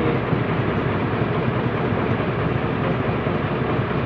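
Heavy diesel engine running steadily at a constant pitch, a dense even rumble with no revving.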